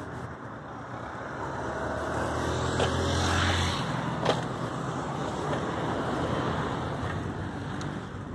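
Car traffic driving past on the road alongside, one car passing close with an engine hum that swells about three seconds in, over a steady rush of road noise. A single sharp click sounds just after.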